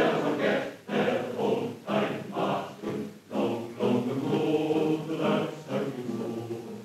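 Choral music on the film's soundtrack: a choir singing, its phrases rising and breaking every half second or so.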